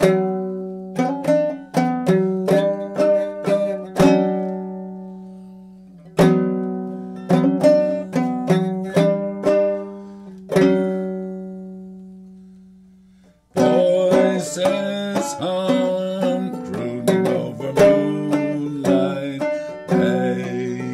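Banjo played clawhammer style in the key of D: plucked notes and chords ringing out, twice left to die away over a couple of seconds. About two-thirds of the way in, the playing turns steady and busier, with a lower line under it.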